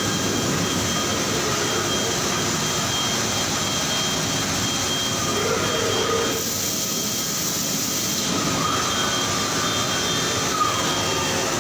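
Steady factory machinery noise: a continuous whirring din with a faint high steady tone, which thins briefly about halfway through, and one short click near the end.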